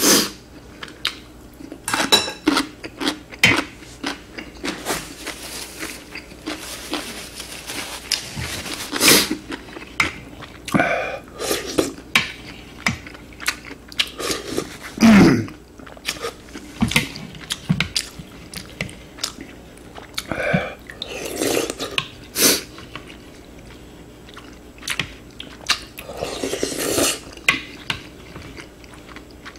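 Close-miked eating sounds: chewing and slurping of ramen broth and kimchi, with a spoon and chopsticks clicking and knocking against a glass bowl. There are many short clicks and a few longer slurps of a second or two.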